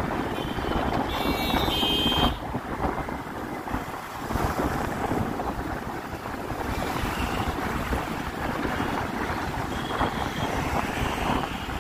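Busy road traffic heard from a moving two-wheeler: steady engine and tyre noise with wind buffeting the microphone, and short horn beeps about a second in and again near the end.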